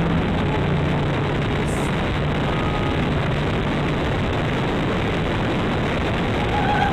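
Steady rush of wind with the drone of the Dynam P-51 model's electric motor and propeller, as heard from the model in flight.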